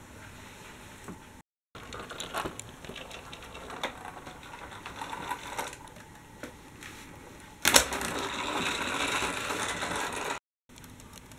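Dickie Toys toy tram and articulated bus moved along a cardboard layout: plastic wheels and bodies clicking and rattling, then a louder steady rolling noise that starts suddenly and lasts about three seconds.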